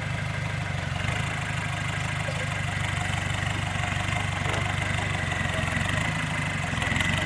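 Off-road 4x4's engine running at low revs as it crawls slowly through rough ground, a steady low rumble with a thin high whine that comes in about a second in.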